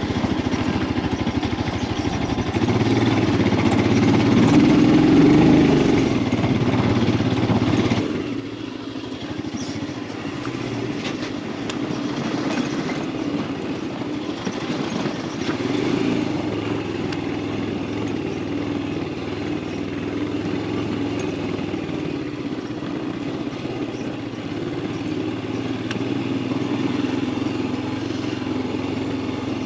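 Royal Enfield Himalayan 411's single-cylinder engine running under way. It pulls harder for the first several seconds, drops off suddenly about a quarter of the way in as the throttle closes, then runs on more quietly and evenly.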